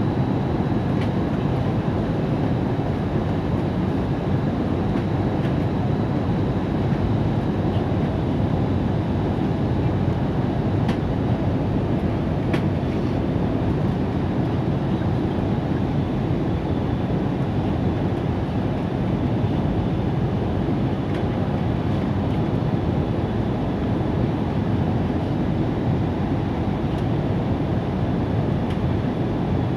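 Steady low roar of an Airbus A320's jet engines and airflow, holding even with no rise or fall.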